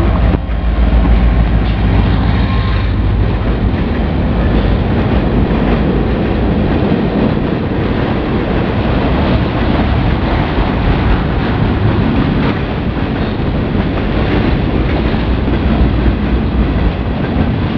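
A freight train passing close below. The diesel locomotives' engine rumble is heaviest in the first few seconds, then gives way to the steady rolling noise of open freight cars on the rails.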